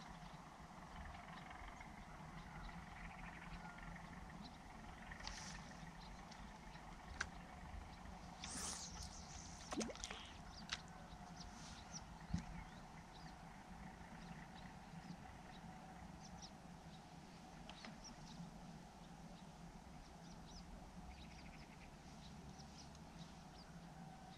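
Quiet ambience: a faint steady low hum, with a few soft clicks and knocks around the middle.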